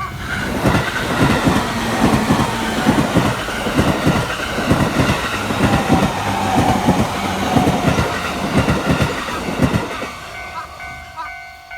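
An electric passenger train of the Joban Line passes at speed through a level crossing. Its wheels clatter loudly over the rail joints in a rapid, uneven rhythm, and a faint falling tone is heard midway. About ten seconds in, the train noise fades and the crossing's electronic warning bell is heard again.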